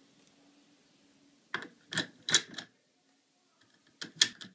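Car seat-belt buckle clicking as its red release button is pressed: a quick run of four sharp clicks about a second and a half in, then three more near the end.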